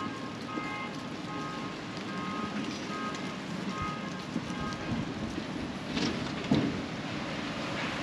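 City street ambience: a steady wash of traffic and outdoor noise, with a faint tune of short high notes through the first half and a single knock about six and a half seconds in.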